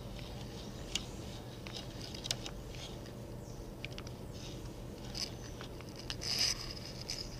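Auger bit in a hand brace boring into a poplar board, giving a faint crunch and crackle of wood fibres being cut, with scattered small ticks. The bit is scoring through from the second side to free the last disc of the hole, and it lifts out near the end with a slightly louder rustle.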